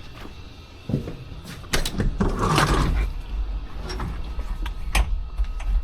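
Clunks and clicks of the skid steer's cab door and controls, then about two seconds in the Kubota SVL75-2's diesel engine starts and settles into a steady low idle, started cold for warming up before an oil change.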